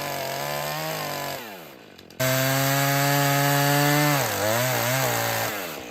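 A power saw cutting a wooden post. It runs steadily, then winds down about a second and a half in. It starts again sharply just after two seconds, and its pitch dips and wavers around four seconds as it labours under load in the wood. It winds down again near the end.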